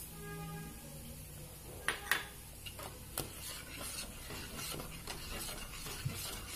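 Spoon stirring and scraping in a pan of milk being boiled down on low heat for rabdi, with scattered light scrapes and clicks against the pan.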